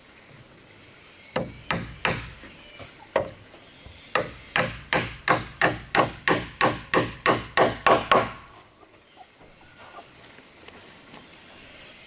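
Hand hammer striking a wooden post. First come a few scattered blows, then a quick even run of about a dozen at roughly three a second, which stops about two-thirds of the way through.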